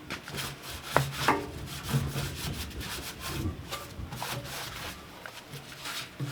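Irregular scraping and rubbing, as in hand work on a part, with scattered clicks and a couple of sharp knocks about a second in.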